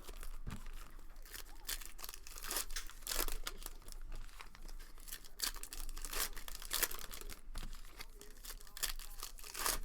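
Trading card pack wrappers being torn open and crinkled, with the cards handled: an uneven run of short rips and rustles.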